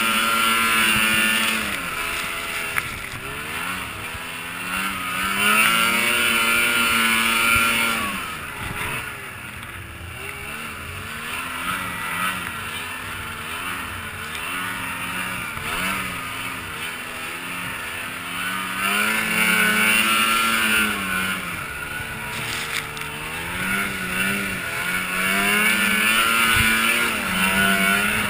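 Snowmobile engine revving up and easing off again and again as the sled works through deep snow, its pitch climbing and falling. The hardest pushes come at the start, around six seconds in, around twenty seconds in, and near the end.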